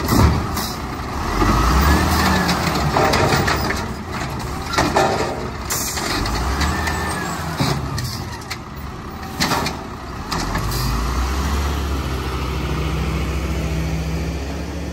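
Diesel engine of a 1999 Volvo garbage truck with an Amrep automated side-loader, revving repeatedly to drive the hydraulic arm as it grabs, lifts and dumps a cart, with a rising and falling whine from the arm. Sharp knocks come as the cart hits the body and is set back down. The engine then settles into a steady low run as the truck pulls away.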